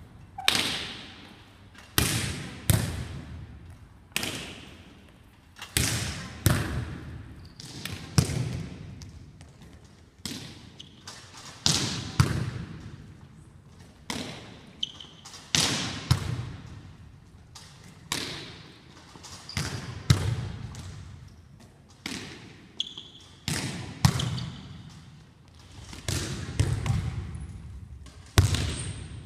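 Volleyballs being struck in a passing and digging drill, sharp slaps of hands and forearms on the ball that echo around a large gymnasium. The hits come about every two seconds, often as two in quick succession.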